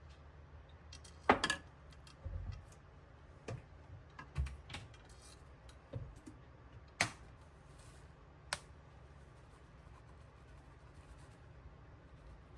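A handful of separate sharp clicks and knocks, as of small objects being handled and set down, with the loudest about a second in and the last near the middle, then only a low room background.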